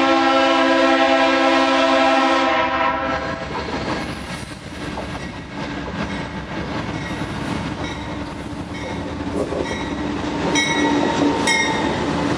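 CN GE C40-8W freight locomotive's Leslie RS3L three-chime air horn sounding a long chord that stops about two and a half seconds in. The train's running noise then builds as it approaches, with two short horn toots near the end as the locomotive comes past.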